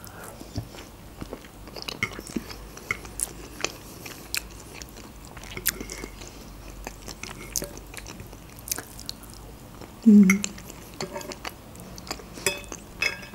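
Close-up chewing of a mouthful of fried eggs: soft, wet mouth clicks and smacks, with a short hummed "mm" about ten seconds in.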